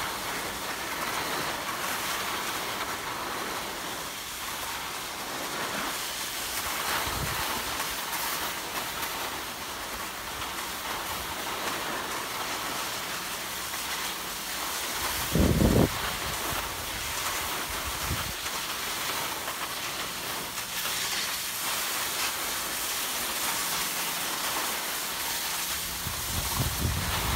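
Skis sliding over packed snow: a steady scraping hiss. A brief low thump about fifteen seconds in is the loudest moment.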